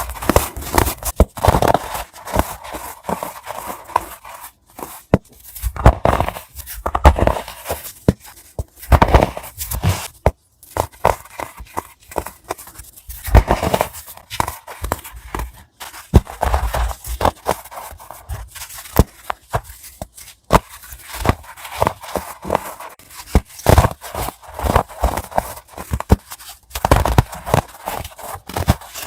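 Pressed white baking soda being snapped and crushed, a run of dry, crisp crunches and crackles in clusters with short pauses between.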